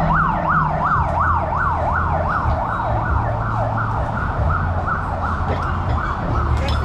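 Emergency-vehicle siren in a fast yelp: a rising and falling wail that repeats about three times a second and grows fainter in the second half, over a steady low hum.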